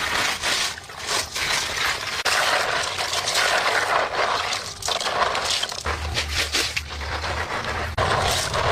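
Water sloshing and trickling in uneven surges, with a faint low hum underneath in places.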